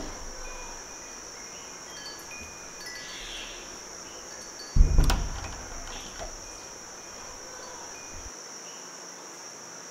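Wind chimes tinkling sparsely over a steady high hiss. About five seconds in comes one sudden deep thump that dies away over a second or so.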